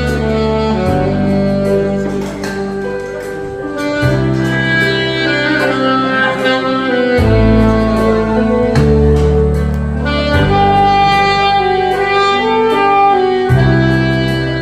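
Alto saxophone playing a slow, lyrical melody over an accompaniment of sustained bass notes and a steady drum beat.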